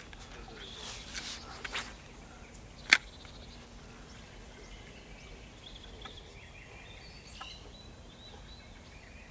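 Quiet outdoor ambience at the water's edge, with faint bird calls. A few brief rustling sounds come in the first two seconds, and a single sharp click about three seconds in.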